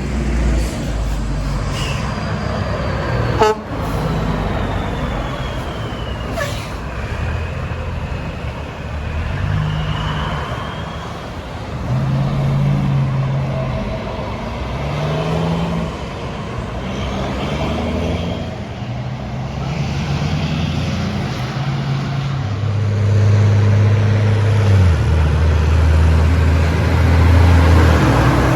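Heavy trucks passing on a highway, engines and tyres loud, with horn blasts from passing trucks. Steady tones are held for a few seconds at a time, the longest near the end.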